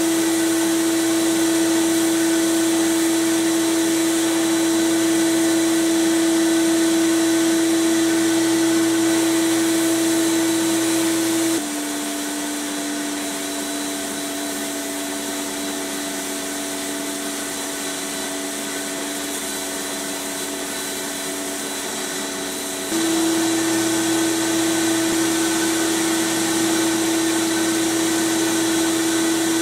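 Abrasive blast cabinet at work: a steady hiss from the blast gun over a steady motor hum, stripping old paint from small pressed-steel toy parts. About 11 s in the sound drops a little and the hum lowers slightly, then it comes back up about 23 s in.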